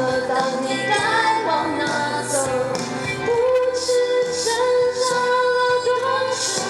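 A woman singing a pop song live over a loud backing track through the event's sound system, holding one long note in the second half. The backing music is mixed so loud that it nearly drowns out her voice.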